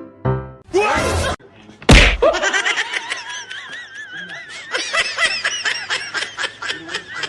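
A short rising swoop and a loud hit, then several seconds of high-pitched laughter in quick repeated pulses with a wavering pitch.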